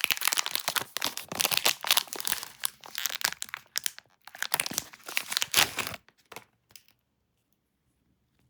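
Plastic candy bar wrapper crinkling and tearing in dense crackling handling, which stops about six seconds in.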